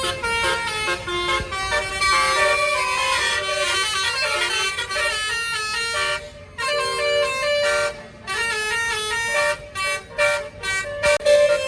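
A bus's telolet horn, a multi-tone air horn, plays a tune of quick stepped notes. Near the end it breaks into a few short separate blasts.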